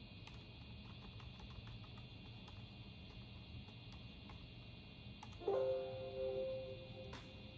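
Scattered light clicks over a steady computer-room hum, then about five and a half seconds in a short two-note computer alert chime rings and fades, the Windows sound that accompanies a warning dialog popping up.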